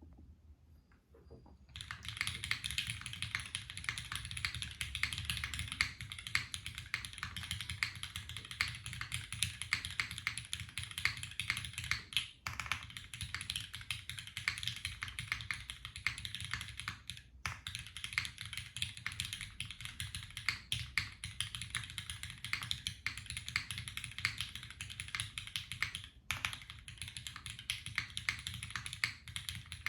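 Fast continuous typing on a custom mechanical keyboard with lubed linear Cherry MX Black Hyperglide switches and GMK keycaps on an aluminum plate. It starts about two seconds in and breaks off briefly a few times.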